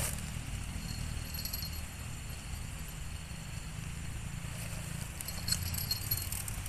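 Riverside ambience: a steady low rumble, with high-pitched insect chirping coming in short spells about a second in and again near the end.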